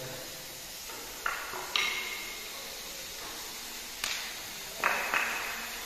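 Several sharp metallic clinks, about five, each with a short ringing tone, from steel tools and fittings being handled on a car-body straightening bench.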